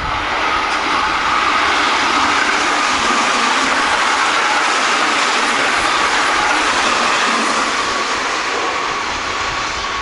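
Keihan Main Line electric train passing the platform, its wheels running on the rails with a steady high whine through the noise, loudest in the middle and easing off near the end.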